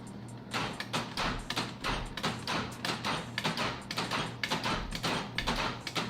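Quick, irregular clicks and knocks on a Jeep XJ's passenger door, several a second, as the interior door lock is worked and the refitted door panel handled.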